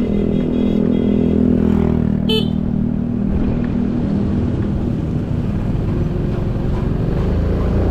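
Motorcycle engine running steadily on the road, with wind and road rumble, and a brief horn toot about two seconds in.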